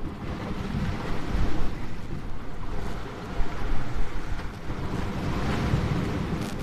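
Sea waves breaking and washing around rocks, the surf hissing and swelling in surges, with wind buffeting the microphone.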